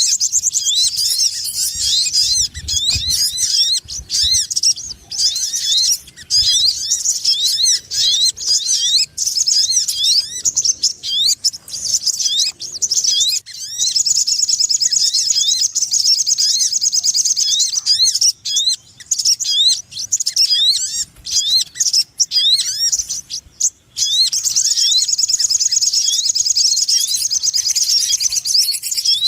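Busy, rapid high chirping and trilling of a sogon ontong lure call, short rising notes repeated many times a second without pause, with denser trill runs about midway and near the end.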